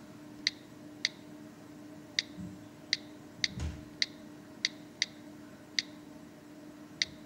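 iPhone on-screen keyboard key clicks, one short tick per keypress, about ten at an uneven typing pace, over a faint steady hum. A soft low thump comes a little past halfway.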